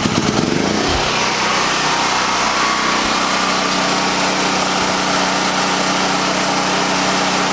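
Engine of a Harbor Freight Predator 9000-watt portable generator just after starting, climbing in pitch and settling into a steady run about a second in. It runs without load, warming up before the house is switched over to it.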